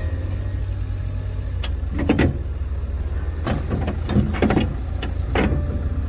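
Forklift engine running with a steady low rumble, with bursts of clanking and rattling as it drives up.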